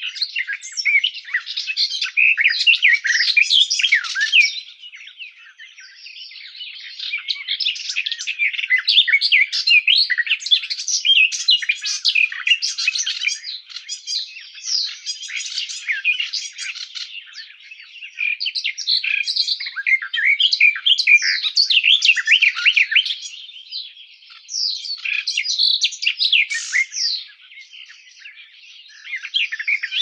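Garden warbler (Sylvia borin) singing: long, fast, rich warbling phrases of a few seconds each, broken by short pauses, five or so phrases in all.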